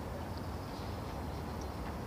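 Steady city ambience: a low, even rumble of distant road traffic.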